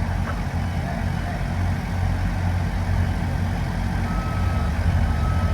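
Heavy construction machinery engine running with a steady low drone, and a reversing alarm starting to beep about four seconds in, a long beep roughly once a second.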